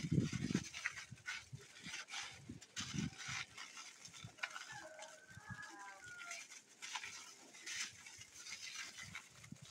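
Aluminium foil crinkling and rustling in short bursts as it is folded and pressed around a stuffed nopal paddle. An animal calls faintly in the background for a second or two around the middle.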